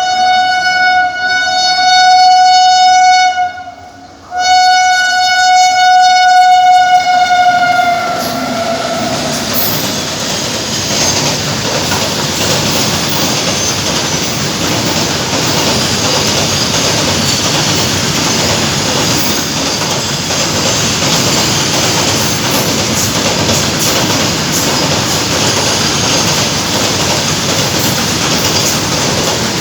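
Indian Railways WAG-9 electric locomotive's horn sounding two long, loud blasts with a brief break between, the second dropping in pitch at its end as the engine passes. Then the freight train's wagons roll by in a steady rumble with clickety-clack from the wheels over the rail joints.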